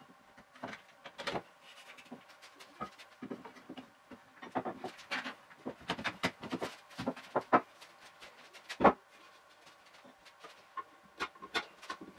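A quick, irregular run of wooden knocks and clatters as wooden bench parts are handled and set down on a workbench, sped up to four times speed.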